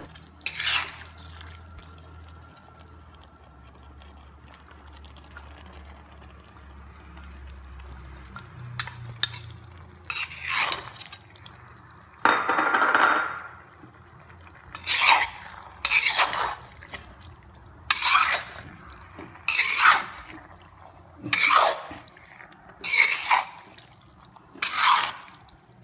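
A wooden spatula stirring and scraping thick chicken masala and raw potato sticks in a pan: a few scattered wet scrapes at first, then regular strokes about every second and a half.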